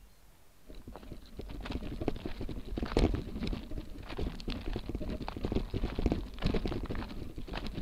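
Motobecane Fantom Cross gravel bike riding over loose gravel and rocks: tyres crunching and the bike rattling in a dense, irregular run of clicks and knocks that starts just under a second in.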